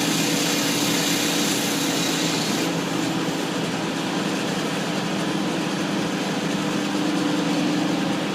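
Concrete saw running steadily with its engine note under the hiss of the blade grinding through concrete; the high hiss eases about three seconds in while the engine keeps running.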